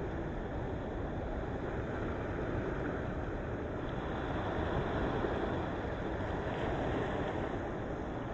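Sea waves washing in steadily against a rocky shore, a continuous rushing surf with slight swells about five and seven seconds in.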